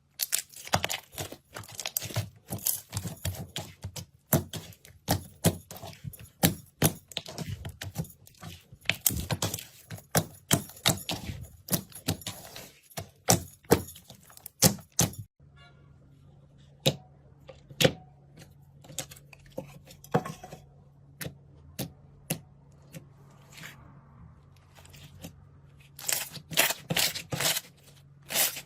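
Slime being handled: rapid sticky pops and crackles. The pops thin out to a few scattered clicks over a faint steady hum about halfway through, then come thick and fast again near the end.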